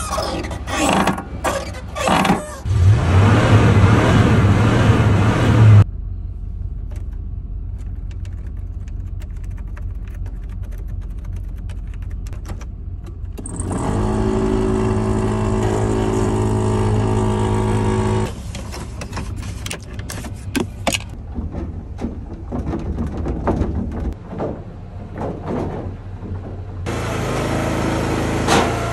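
A string of short clips around an old Chevrolet 2500 pickup with a 5.7-litre (350) V8: door and cab clunks, then the engine running, heard from inside the cab. Near the end a log splitter's engine runs steadily.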